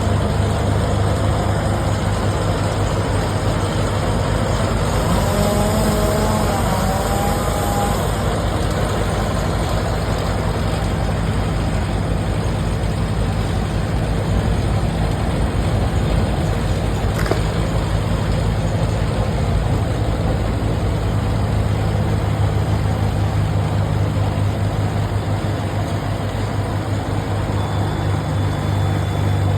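A heavy engine running steadily at idle, with a brief wavering higher tone about six seconds in and a single sharp click around seventeen seconds in.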